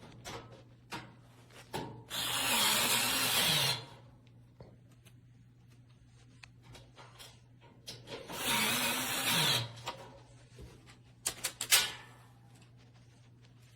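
JENABOM 3.6V cordless electric screwdriver on its highest torque setting driving screws in two runs of about a second and a half each, the motor slowing near the end of each run. A few sharp clicks follow near the end.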